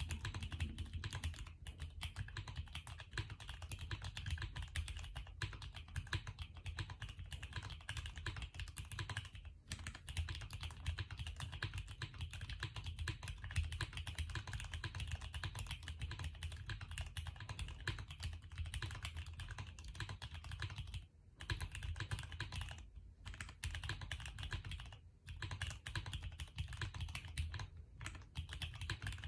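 Continuous fast typing on a mechanical keyboard with lubed Cherry MX Brown tactile switches on Durock 63.5 g springs, in a KBDFans D60 with a polycarbonate plate. The keystrokes run in a steady stream with a few brief pauses.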